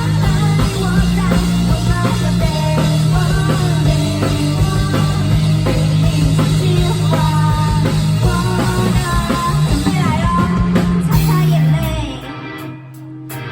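Rock band playing live, with drum kit, guitar and bass. About twelve seconds in, the full band drops out, leaving a quieter held bass note and sparse hits.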